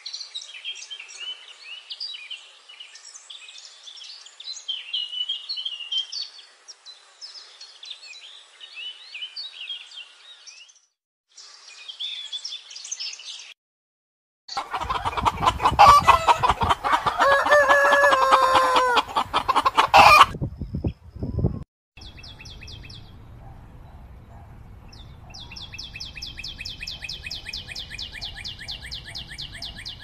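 High, twittering chirps of a small songbird for the first dozen seconds. Then, after a brief gap, a flock of chickens clucking loudly with a rooster crowing, the loudest part. Near the end comes a quieter, fast even trill.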